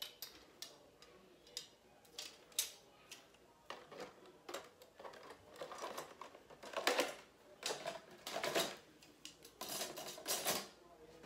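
Plastic hair combs clicking and clattering together and plastic packaging rustling as they are handled and put away: a string of light clicks and scrapes, with louder rustling in the second half.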